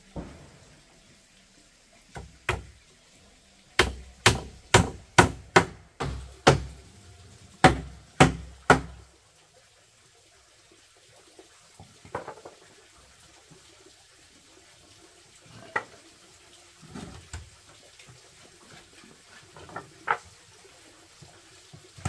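Hammer blows on wood, as when nailing boards: about a dozen sharp strikes, two or three a second, then scattered lighter knocks near the end.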